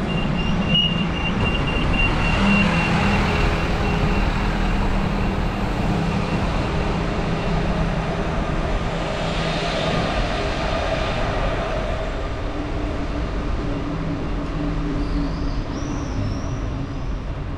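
Steady rolling and wind noise from a bicycle ride over asphalt streets, picked up by the bike's camera, with a constant low hum under it.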